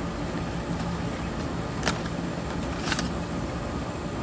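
Two short crackles, about two and three seconds in, from a newly unboxed gamepad and its plastic packaging being handled, over a steady background hiss and low hum.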